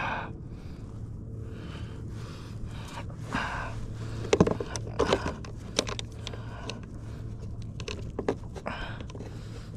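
Breathing close to the microphone with scattered small clicks and knocks, over a steady low hum.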